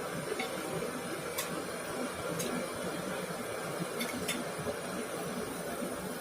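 Breaded prawns deep-frying in hot oil: a steady sizzle with a few sharp crackles.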